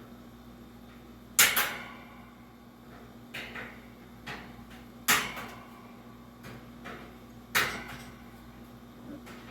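Three loud, sharp knocks with a short ring after each, spaced a few seconds apart, with a few lighter clicks between them: parts and tools being handled while a metal box fan is taken apart.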